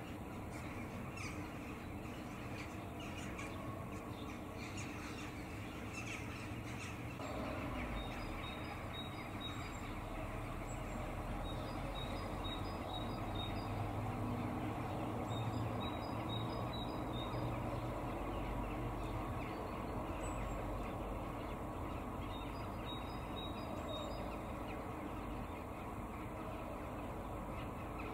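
Steady outdoor background hiss with a low rumble that swells from about seven seconds in. Short, faint, high bird calls come through several times.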